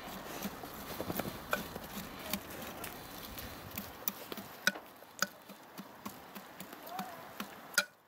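A spoon stirring chopped cabbage and vegetables in an Afghan kazan, with irregular clicks and scrapes of the spoon against the pot. The clicks grow sharper and fewer in the second half, the loudest one near the end.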